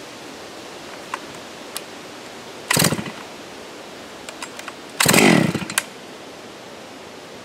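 Farmer Jones MS660-clone chainsaw pulled over twice on its starter cord, about two seconds apart, each pull a short burst of the engine turning over. The second is longer and falls in pitch, and the saw does not keep running.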